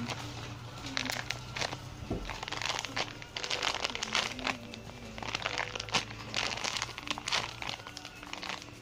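Plastic packaging of a squishy toy crinkling and crackling irregularly as it is handled and opened.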